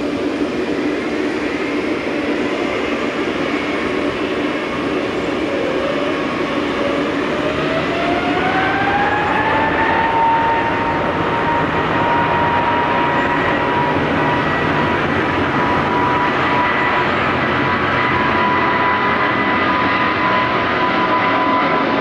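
Boeing 777-200ER's twin turbofan engines spooling up for takeoff: a whine climbs in pitch between about six and ten seconds in, then holds steady over the engine rumble at takeoff thrust as the jet starts its roll.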